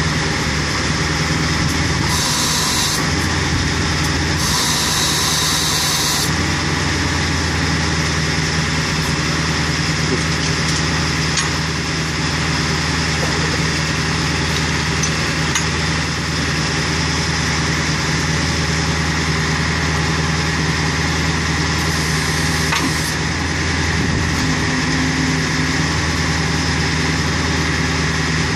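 A 2001 Ford F550 rollback tow truck's engine running at a steady idle. Two short bursts of hiss come in the first six seconds.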